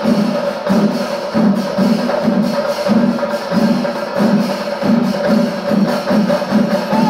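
Chenda melam, the Kerala temple percussion ensemble of chenda drums with ilathalam cymbals, playing its kalasam climax. The drums keep a fast, even beat of about three strokes a second over a bright cymbal shimmer, with a steady held tone above.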